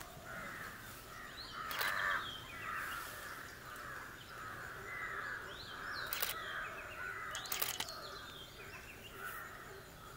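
Forest birds calling: a harsh call repeated roughly one and a half times a second, with a few short higher chirps and three sharp clicks.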